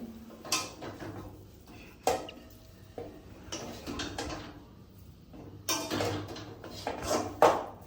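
Metal utensils knocking and scraping against a kadai as the cooked chicken filling is taken off the heat: a series of separate clinks and scrapes, with sharp ringing clinks about two seconds in and near the end.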